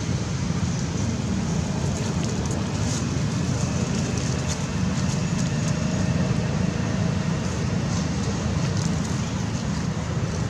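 Steady low outdoor rumble with an even hiss above it, and faint light clicks here and there.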